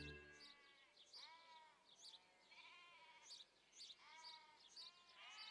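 Faint bleating of livestock: four or five separate calls, each about half a second long, with short high chirps over them. A music tail fades out in the first half second.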